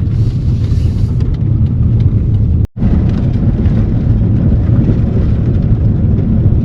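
Loud, steady low rumble of a car driving, with a split-second dropout a little under three seconds in.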